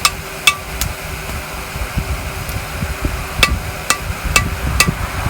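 Hand hammer striking hot metal on a railroad-track anvil, each blow ringing briefly: three blows about half a second apart, a pause of two and a half seconds, then four more at the same pace.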